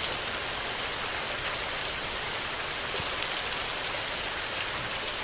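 Steady rain falling: an even hiss of many drops, with faint single drop ticks scattered through it.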